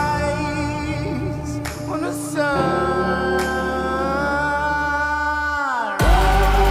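A song with a singer holding long, wavering notes, the last one sliding down and dropping off. About six seconds in, a loud section with heavy bass kicks in.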